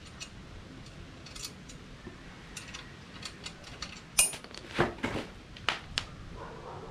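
Small metal clinks and taps as bolts, washers and nuts are handled and fitted by hand onto a motorcycle paddock stand's metal frame, with a sharp clank about four seconds in followed by a few more knocks.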